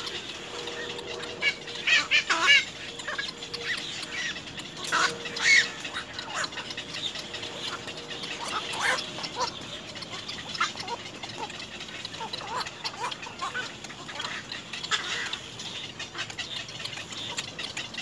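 Black-crowned night heron nestlings calling from the nest: a string of short calls, loudest in two quick pairs about two and five seconds in, with fainter calls scattered through.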